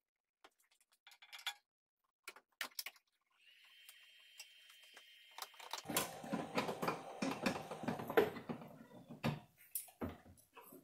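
Metal clinks and rattles of an engine hanging on a hoist chain as it is lowered into the engine bay, with a denser run of clattering and knocking from about six to nine and a half seconds in.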